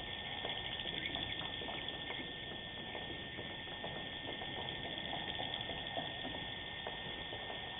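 Swiftlets chirping and clicking faintly inside a swiftlet house, scattered short sounds over a steady hiss, recorded through a CCTV camera's microphone that also carries a constant thin tone.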